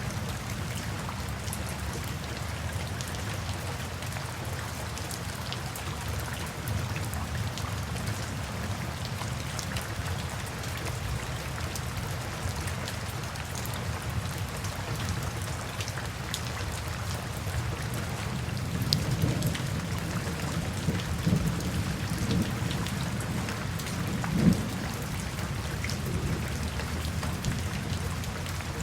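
Steady rain falling, with scattered sharp drop ticks. A low rumble of distant thunder swells in the latter part, with a few louder peaks near the end.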